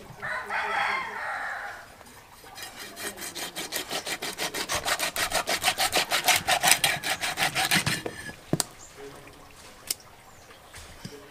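A heavy knife scraping the scales off a striped snakehead fish on a wooden block, in a run of rapid, regular strokes lasting about five seconds. A rooster crows in the first two seconds.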